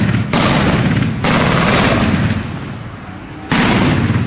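Long, close bursts of machine-gun fire. The firing pauses for about a second near the middle, then a fresh burst starts about three and a half seconds in.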